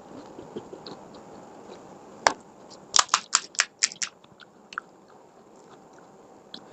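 A person biting and chewing fuchka (panipuri), the crisp hollow puris crunching in the mouth. There is one sharp crack a little over two seconds in, then a quick run of about seven crunches within a second, and softer chewing around them.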